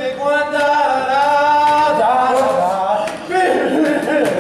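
A man singing long held notes in a high voice, the pitch sliding from one note to the next.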